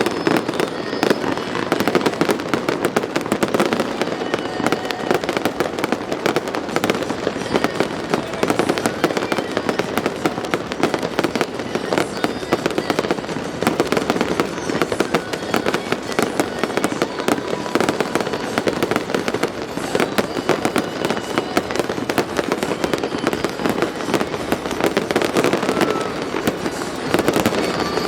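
Fireworks display: a dense, continuous run of bangs and crackles, many a second without a break.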